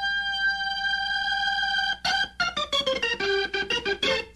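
Organ on a funk record holding a single steady note for about two seconds, then playing a quick run of short, detached notes that step down in pitch.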